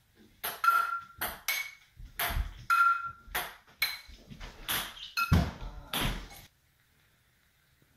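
A ping-pong ball hit back and forth with frying pans, bouncing on a hard countertop: a quick, irregular run of sharp clacks and pings, some ringing briefly. It goes near silent about six and a half seconds in.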